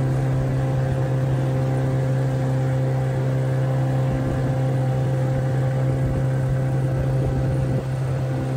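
Boat's outboard motor running at a steady speed, an even hum that holds one pitch.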